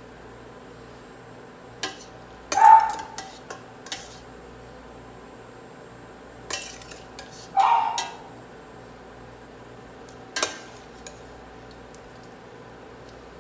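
A metal ladle knocking and scraping against a stainless steel pot as blanched broccoli is scooped out of the water. There are several clanks a few seconds apart; the two loudest ring briefly. A steady low hum sits underneath.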